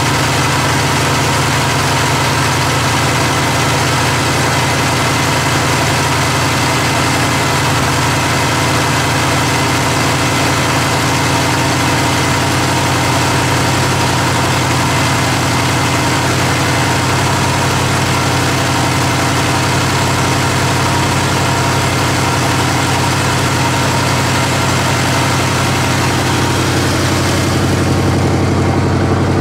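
Original 1971 Pontiac Bonneville's 455 V8, with a two-barrel carburettor, points ignition and single exhaust, idling steadily as it warms up after a cold start. The idle sits a little high. Near the end the sound turns duller as the microphone moves away from the engine bay.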